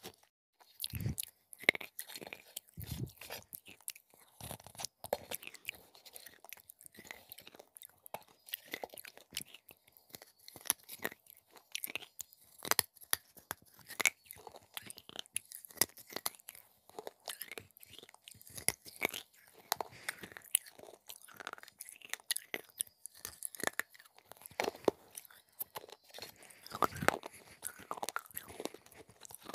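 Close-miked biting and chewing of soaked clay: many sharp crunches and crackles, one after another, with wet mouth sounds.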